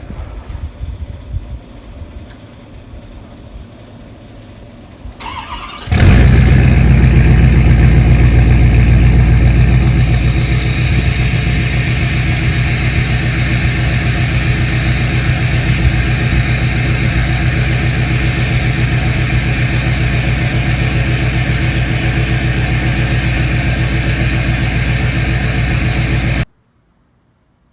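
2014 Ford F-250's 6.7 Power Stroke V8 turbodiesel, straight-piped through a 5-inch exhaust, cold-started at about 29 degrees: a brief crank, then the engine catches loudly about six seconds in and runs at a fast cold idle. A few seconds later it settles a little into a steady idle, while a high whine rises and then holds. The sound cuts off abruptly near the end.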